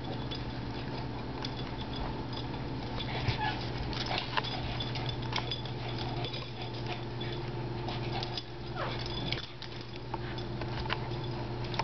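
Two small dogs play-wrestling: scuffling with scattered small clicks and brief dog noises, and one falling sound about nine seconds in. A steady low hum sits underneath.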